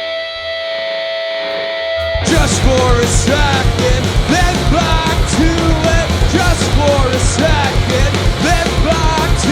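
Live punk-rock band: a held electric guitar chord rings out, then about two seconds in the full band comes in loud with a steady drum beat, bass and a bending lead melody.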